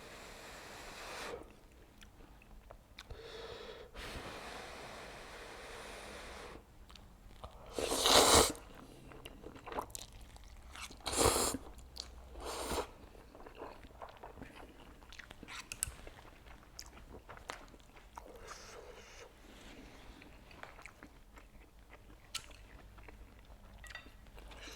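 Close-miked eating of instant noodles (Buldak fire noodles mixed with Jjapaghetti): chewing and wet mouth sounds throughout, with three short, loud noisy bursts about eight, eleven and twelve and a half seconds in.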